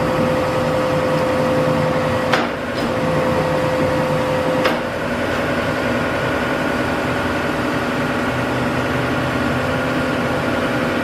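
Metal shaper running steadily with its machinery humming, with a sharp click about two and a half seconds in and another near five seconds, where a steady hum drops out.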